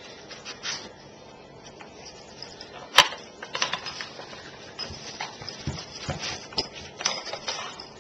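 Dog working a plastic Dog Brick puzzle toy: scattered clicks and clatter of the toy's pieces being moved, with one sharp, loud click about three seconds in and quicker clicking in the second half.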